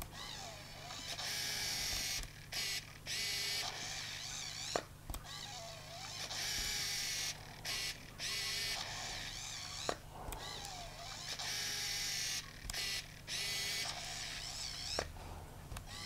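Contax TVS-series compact zoom camera being switched on and off three times: its motorised lens whirs high in several short runs as it drives out and back in, and each cycle ends in a sharp click.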